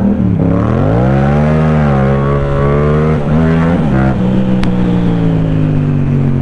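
Yamaha MT-07's parallel-twin through an aftermarket Akrapovič exhaust revving hard under full-throttle acceleration. The pitch climbs steeply, dips briefly about three seconds in, climbs again, then eases slowly down. Wind rushes over the microphone.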